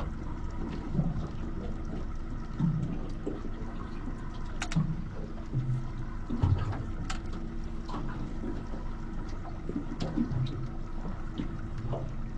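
Water slapping and lapping against a boat's hull in irregular low thuds every second or two, with small splashy ticks and a steady hum underneath.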